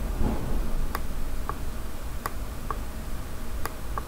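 Computer mouse buttons clicking in three pairs: a sharp click, then a softer, lower click about half a second later, the press and release as each short line is dragged out. A low steady hum runs underneath.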